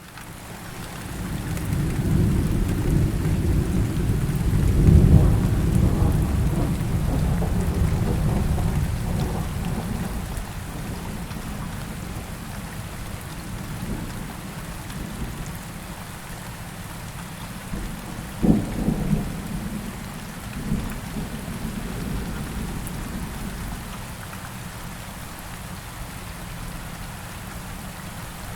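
Thunderstorm with steady rain: a long rolling rumble of thunder swells over the first few seconds and fades away, then a sharp thunderclap about two-thirds of the way through is followed by a shorter rumble, all over a steady hiss of rain.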